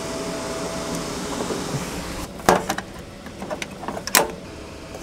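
Cooling fans of a BigBlue CellPowa2500 portable power station whirring steadily under a heavy load of about 1,600 watts, with two sharp clicks, about two and a half and four seconds in, from the electric truck's charging plug being connected.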